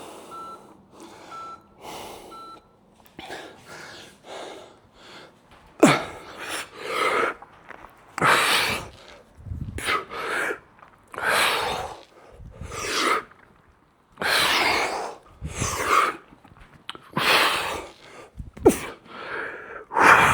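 Three short electronic interval-timer beeps mark the start of the round. Then a man breathes hard with forced exhalations, one loud puff roughly every second and a half, as he works through repetitions of a heavy strength exercise.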